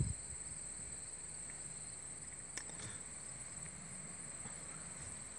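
Crickets chirring in a steady, high-pitched pulsing drone over a faint low background rumble, with a single faint click partway through.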